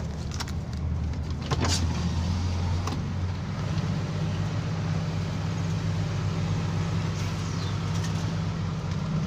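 An engine running steadily with a low hum, with a few faint clicks in the first few seconds.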